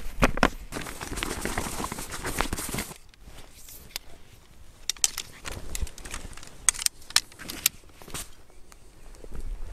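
Camping gear being handled and packed: fabric rustling for about three seconds, then scattered light clicks and clacks as a bundle of tent poles is folded.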